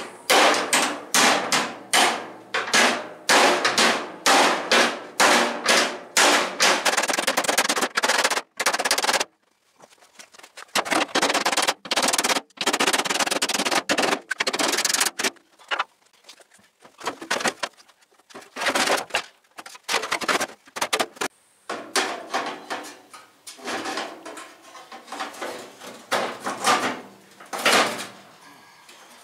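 Steel hammered and chiselled in fast runs of sharp metallic blows with short pauses, as the outer band is cut off a 1930 Ford Model A cowl. The blows thin out for a while in the middle, then come thick again near the end.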